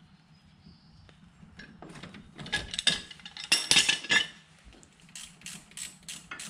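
Metal hand tools and brake parts clinking and knocking against each other during a rear brake caliper job, loudest about two and a half to four seconds in. Near the end comes a run of quick, even clicks like a ratchet wrench turning a bolt.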